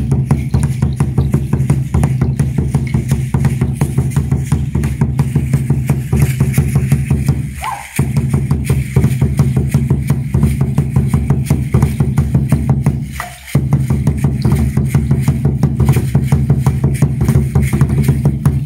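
Huehuetl, a tall carved wooden upright drum, beaten with sticks in a fast, steady dance rhythm. It breaks off briefly twice and stops at the end.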